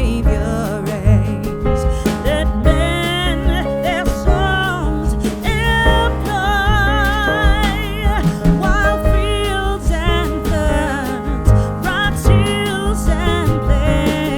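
A song playing: a sung melody with vibrato over a steady bass and backing instruments.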